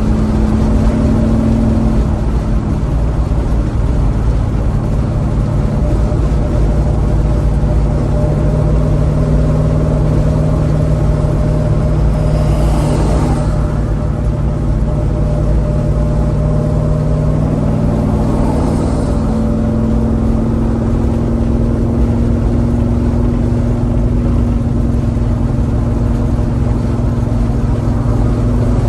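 1971 Chevelle's engine idling steadily through its original exhaust, its idle note shifting slightly a couple of times, with two brief rushing noises about halfway through.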